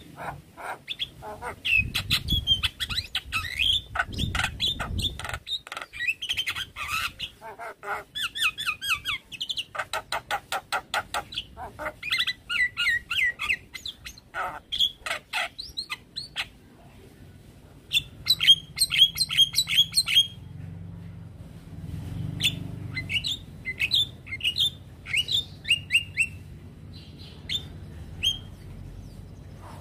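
Javan myna singing a busy, varied song: fast runs of harsh chirps, clicks and squawks mixed with whistled notes, broken by a couple of short pauses in the second half.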